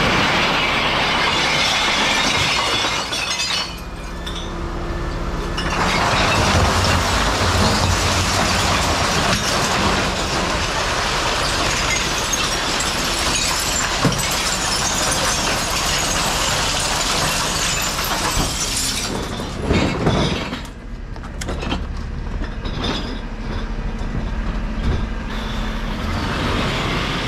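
Rear-loader bin lorry's hydraulic packer plate cycling through the hopper and compacting a load of glass bottles, a loud, dense noise with a brief lull about four seconds in. It dies away after about twenty seconds, leaving the truck's engine running.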